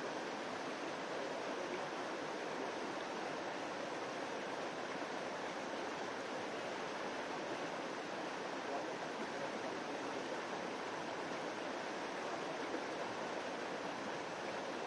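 Shallow stream running over rocks, a steady unbroken rush of water.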